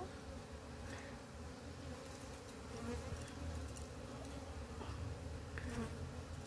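Many honeybees buzzing in the air around their hive, a steady low hum: the colony stirred up as its honey is harvested.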